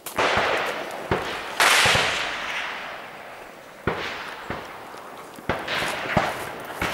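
Gunfire in a firefight: about seven single shots at irregular intervals, each cracking sharply and trailing off in a long echo, the loudest about a second and a half in.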